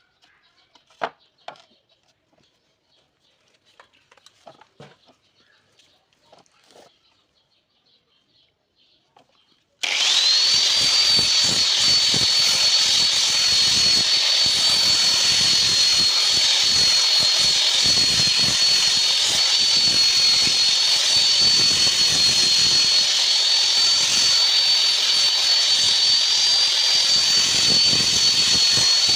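Handheld electric power tool fitted with an adhesive sandpaper disc, used for sanding wood. After several seconds of faint clicks and handling knocks, it switches on about ten seconds in: its whine rises quickly to a steady high pitch and holds at constant speed over a rough scrubbing noise.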